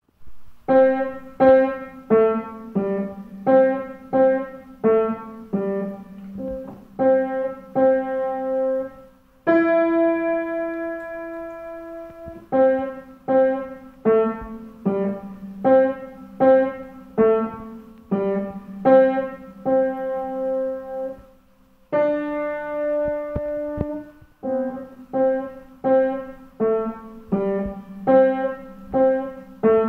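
Solo piano playing a boogie-style piece: short, detached notes in a steady repeating pattern, twice broken by a chord held for a couple of seconds, about a third of the way in and again about two-thirds in.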